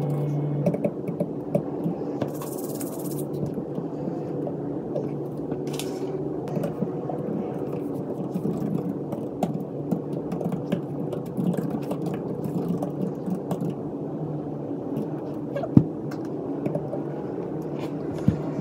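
Fast typing on a laptop keyboard: a dense, continuous run of soft key clicks, with one sharper click about three-quarters of the way through.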